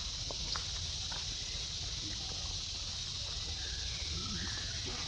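Steady high hiss over a low rumble, with a few faint short squeaks near the middle.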